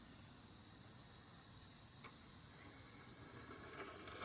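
Steady, high-pitched chirring of crickets in the background.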